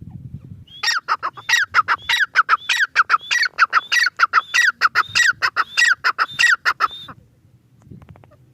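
Grey francolin (teetar) calling: a fast, loud series of repeated notes, several a second, each sliding down in pitch. It starts about a second in and stops shortly before the end.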